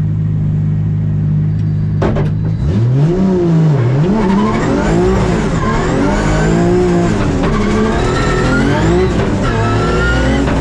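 Toyota JZ-series straight-six in a Nissan S13 drift car, heard from inside the cabin: a steady note, a short knock about two seconds in, then the revs rising and falling over and over as the car drifts.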